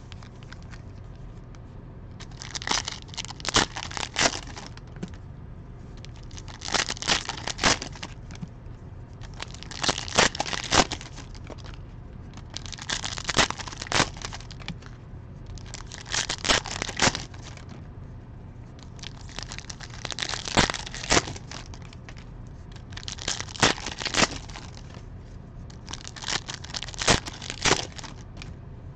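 Foil trading-card pack wrappers crinkling and crackling as they are handled, in about eight short bursts roughly three seconds apart, over a steady low hum.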